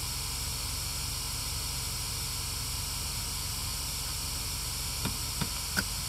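Spirit box putting out a steady hiss of static, with three brief blips of sound breaking through near the end.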